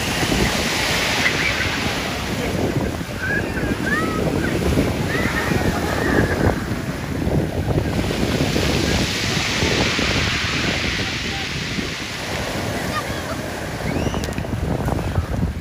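Sea waves breaking and washing up Brighton's shingle beach, the surf hiss swelling near the start and again about halfway through, with wind buffeting the microphone.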